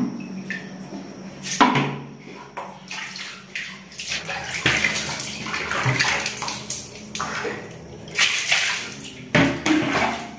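Water splashing in irregular bursts as a mug scoops water from a plastic bucket and hands splash it onto a face.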